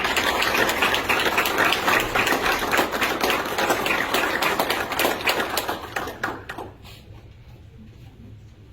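Audience applauding: a dense crowd of hands clapping that fades out about seven seconds in.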